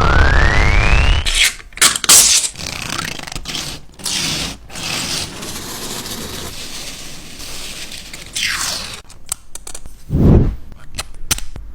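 3D-printed plastic toys being handled, making scraping and clicking sounds. A rising whistle-like tone runs through the first second, and a low thud comes near the end.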